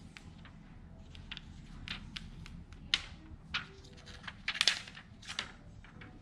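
Clear plastic screen-protector film crackling and clicking as it is flexed and its thin liner peeled off by hand, in irregular snaps, the loudest about three seconds in and a cluster about four and a half seconds in.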